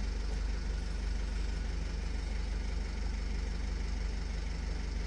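Vauxhall Vivaro diesel van engine idling steadily, heard from inside the cab as an even low hum.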